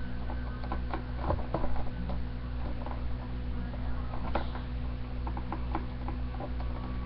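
Scissors snipping at hard plastic blister packaging: irregular clicks and crackles of the stiff plastic, busiest about a second and a half in, over a steady low hum.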